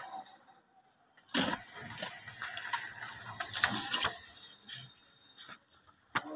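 Epson inkjet printer running its paper-feed mechanism as a printed sheet slides out and rustles: a loud, noisy clattering stretch from about a second in until about four seconds in, quieter after.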